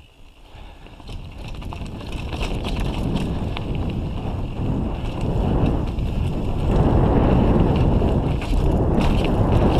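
Wind buffeting the microphone of a mountain bike's onboard camera as it rolls down a dirt trail, mixed with tyre rumble and scattered small rattles and clicks from the bike. The noise grows steadily louder over the first seven seconds or so, as the bike gathers speed, then stays loud.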